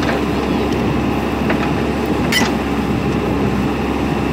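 JCB 3DX backhoe loader's diesel engine running steadily while the backhoe arm works, with a brief clatter about two seconds in.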